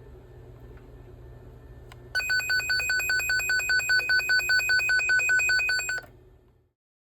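Noyafa NF-8209S toner probe beeping with a high pulsing tone, about four pulses a second, as it picks up the traced Ethernet cable; the tone starts about two seconds in over a faint low hum and cuts off after about four seconds.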